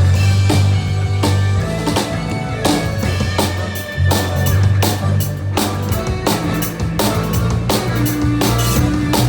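A band playing live: a drum kit keeps a steady beat of kick and snare hits over sustained low bass notes.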